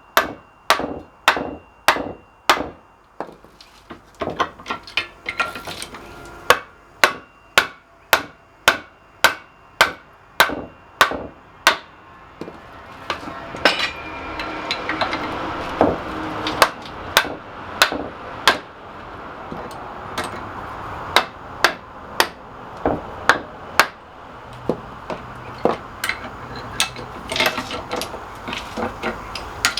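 Repeated hammer blows on steel at the seized bolt and nut of a post vise, about two strikes a second. About halfway through a steady noise rises under them and the blows become less regular.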